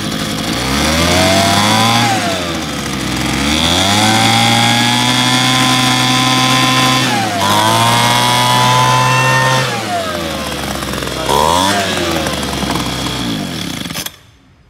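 Two-stroke petrol leaf blower engine running and being revved up and down about four times, held at high revs for a few seconds at a stretch, then shut off abruptly near the end.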